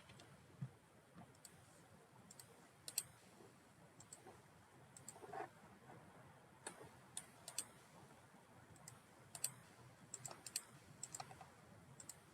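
Faint, irregular clicking of a computer mouse and keyboard: a dozen or so sharp clicks, some in quick pairs, over low room tone.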